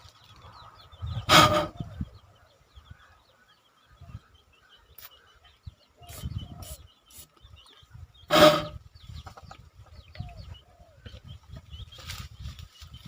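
Two loud, sudden bursts about seven seconds apart from a homemade PVC spray-gas toy air gun being fired, with chickens clucking faintly in between.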